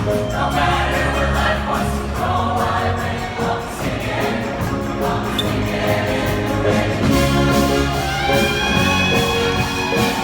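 Choir singing over instrumental backing with a steady percussion beat. In the last couple of seconds a high note slides up and is held.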